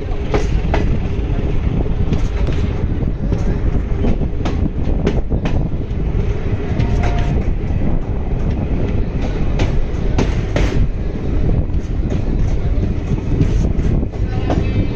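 Passenger train running along the track, heard from on board: a steady loud rumble with scattered clicks and clanks of the wheels over rail joints.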